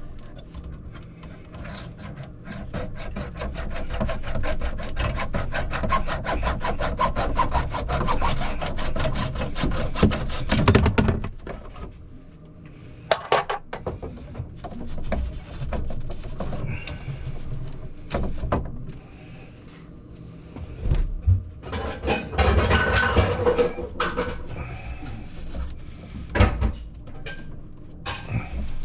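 Saw cutting through a water supply pipe to remove an old ice maker stop valve, in fast, even strokes for about ten seconds that stop suddenly. Then come scattered clicks and a stretch of scraping as the cut pipe and valve are handled.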